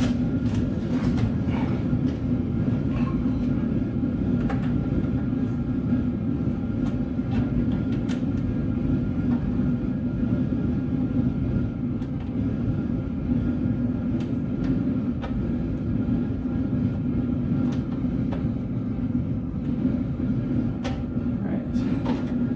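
A steady, loud, low mechanical drone with a hum, running unchanged throughout, with scattered light clicks and clinks of tools and metal parts.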